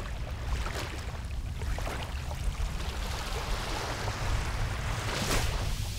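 Small waves washing onto a sandy beach: a steady hiss of water with a low rumble beneath it.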